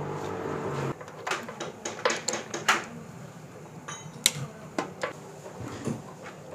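Irregular metallic clicks and clinks of a socket wrench being fitted to and turned on the carburetor insulator bolts of a Honda CG125 engine. A steady low hum stops about a second in.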